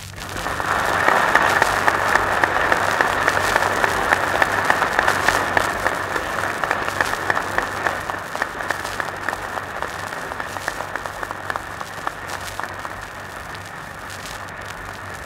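Audience applauding on an old archival recording, with a dull, muffled sound and a steady low hum underneath. The applause swells within the first second and then slowly dies away.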